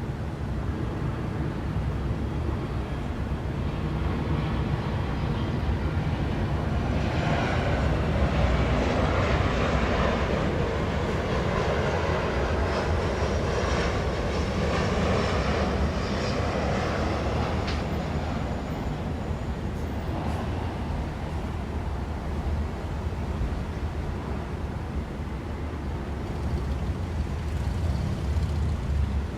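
Steady low city traffic rumble, with a vehicle passing that swells in about seven seconds in and fades out by about eighteen seconds, faint high squealing tones riding on it.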